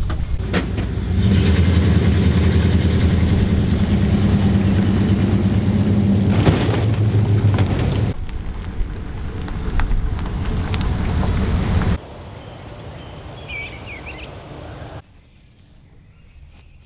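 A boat motor running with a steady low hum that sets in about a second in and cuts off sharply about eight seconds in. Quieter outdoor background follows, with a few short bird chirps about two-thirds of the way through.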